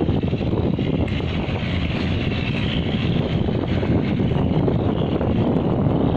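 Wind blowing across the microphone in a steady, gusty rush, over a low rumble.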